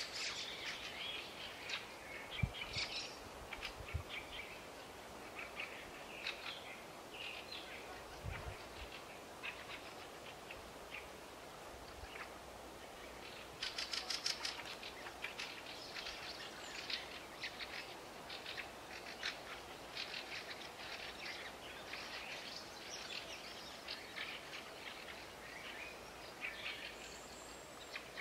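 Small birds chirping and calling on and off over the open field, with a quick rapid trill about fourteen seconds in. A few dull low thumps in the first ten seconds.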